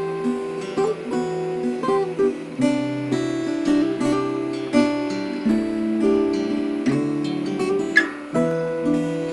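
Two acoustic guitar parts playing together in an instrumental piece, one guitar capoed: picked and strummed chords with notes changing every half second or so. There is a sharp, bright pluck about eight seconds in.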